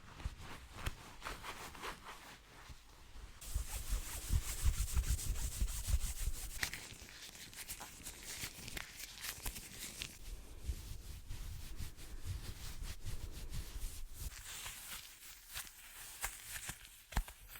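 Hands rubbing together close to the microphone in quick, continuous strokes, getting louder and fuller a few seconds in.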